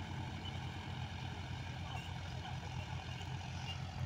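John Deere tractor's diesel engine running steadily under load while pulling a seed drill, a low, even engine throb.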